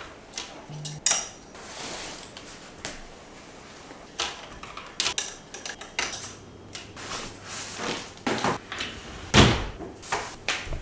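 Clothes being hung in a built-in wardrobe: irregular clicks and knocks of clothes hangers on the rail and the wardrobe door, the loudest knock near the end.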